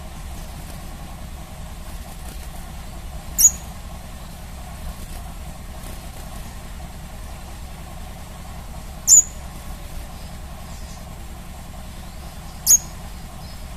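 Crimson sunbird giving three sharp, very high single chirps, a few seconds apart, over a steady low background hum.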